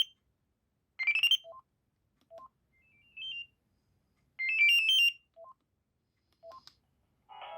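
Panasonic GD67 mobile phone playing its built-in ringtones in short snippets. There are quick rising beeping runs and a warbling trill, each cut off after about half a second, with short low two-note blips between them. A fuller ringtone melody begins near the end.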